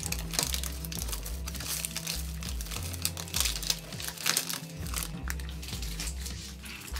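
Plastic packaging crinkling and crackling as a packaged doll outfit is handled and pulled out of a toy locker compartment, over background music with a steady bass line.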